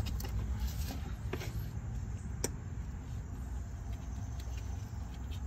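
Light clicks and handling noise over a steady low rumble as a greased polyurethane sway bar bushing is pushed onto the bar by hand, with one sharper click about two and a half seconds in.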